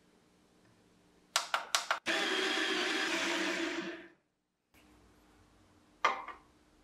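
Baratza Sette 30 conical burr coffee grinder running steadily for about two seconds, grinding espresso beans, preceded by a few quick clicks. The motor cuts off abruptly, and a single sharp knock comes near the end.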